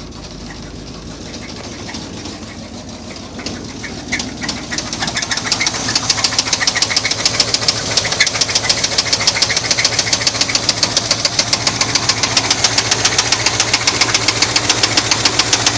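1981 Chevy C10 truck engine running with a fast, rhythmic knock that comes in about four seconds in and grows louder. The owner suspects a spun bearing.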